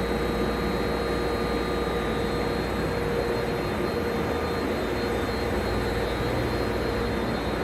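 Sludge-thickening centrifuges running at high speed: a steady machine rush with a few steady whining tones over it.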